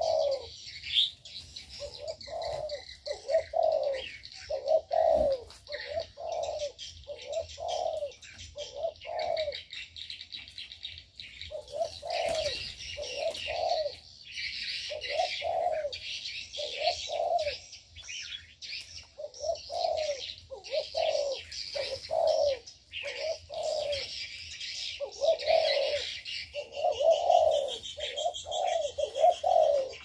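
Spotted doves cooing in runs of low, repeated notes, about two a second, over a steady chatter of chirping and twittering from small birds.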